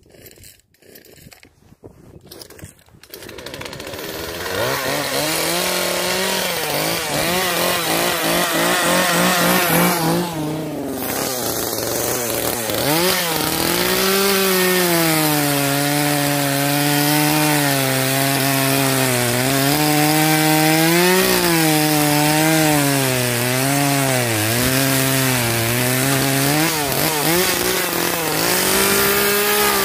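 Poulan 3314 chainsaw, a 33cc two-stroke with a 14-inch bar, coming up to speed about three seconds in and running at high revs. From about thirteen seconds in it cuts through log rounds, the engine pitch dipping and recovering over and over as the chain bites into the wood.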